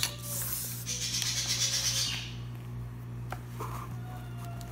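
Hard plastic parts of a VR headset strap rubbing and scraping against each other as they are handled, for about two seconds after a click, then quieter with a light tap about three seconds in.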